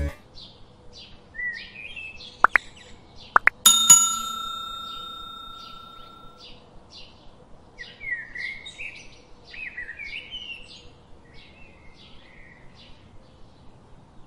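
Birds chirping and warbling in short repeated phrases. A few sharp clicks come about two and a half to three and a half seconds in, then a bell ding that rings out for a couple of seconds: the click-and-bell effect of a subscribe animation.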